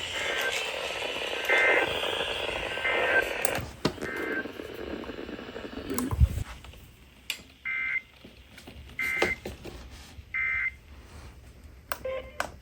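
Emergency Alert System end-of-message data bursts: short buzzy digital tone bursts repeated about a second apart over radio static, marking the end of the warning broadcast. About halfway through the static drops away and three more bursts follow on a quieter feed.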